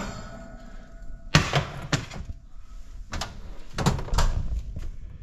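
A white baking dish pulled from an oven and set down on a glass cooktop, and the oven door shut: a series of about five sharp knocks and thunks, the loudest about a second and a half in.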